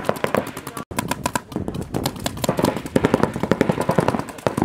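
Paintball markers firing rapid strings of shots, many a second, with a brief break about a second in.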